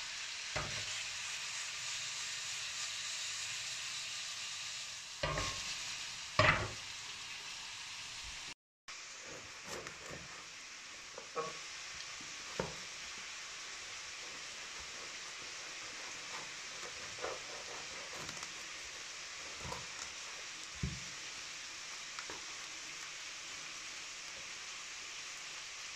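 Chopped meat sizzling in a frying pan, a steady hiss, with a few short knocks and scrapes, the loudest about six seconds in.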